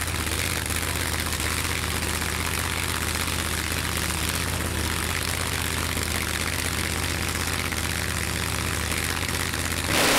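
Top Doorslammer drag racing car engines idling steadily, getting louder just before the end.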